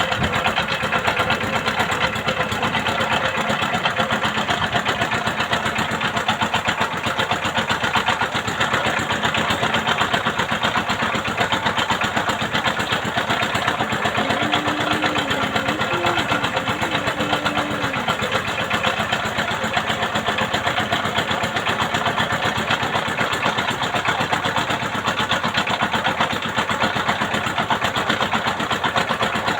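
Boat engine running steadily at an even pace.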